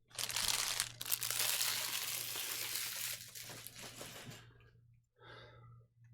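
Trading-card packaging being crinkled and crumpled in the hands, a dense crackling that lasts about four seconds and then stops.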